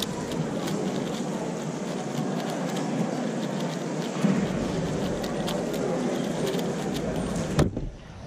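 Rapid plastic clicking of a MoFangGe Shadow M 6x6 speedcube as its layers are turned fast, over steady background noise. Near the end comes a sharp knock as the solved cube is set down to stop the timer.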